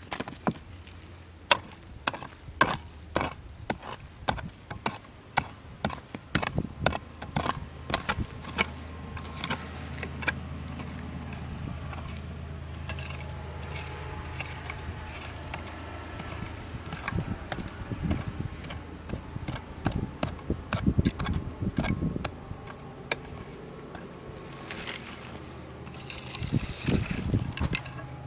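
Hammer blows on a broad steel chisel chipping into hard ground, a sharp knock about once or twice a second for the first ten seconds. A softer stretch of scraping and low thuds follows, with more knocks near the end.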